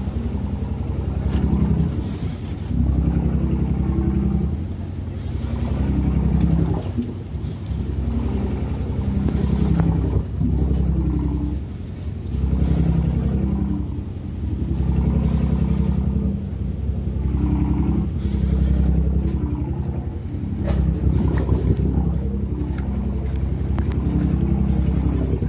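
Fishing boat's engine running with a steady low drone that swells and eases every two to three seconds.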